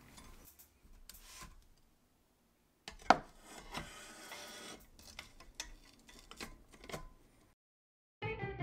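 Scattered clicks and knocks of metal parts being handled as the chrome body shell of an Olivetti Lettera 22 typewriter is lifted off the machine, with one sharp metallic knock that rings briefly about three seconds in. Music starts just before the end.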